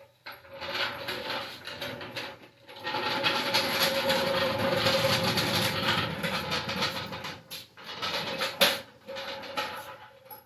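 Steel floor jack rolled over a concrete floor, its wheels and handle rattling, with a sharp metal clank a little before the end.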